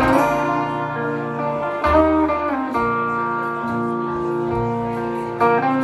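Guitar music from a live song, with held chords ringing and changing every couple of seconds.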